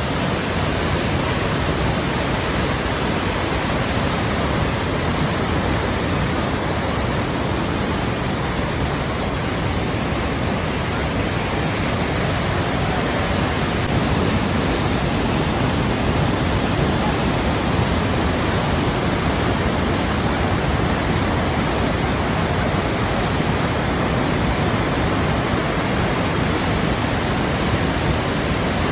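Flowing water rushing steadily in one even, unbroken wash of sound.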